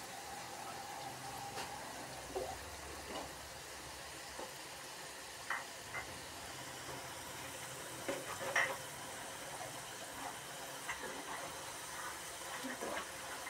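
Potato sticks deep-frying in hot oil in a wok, a steady sizzle. Now and then a metal spoon stirring them makes short clinks and knocks against the pan.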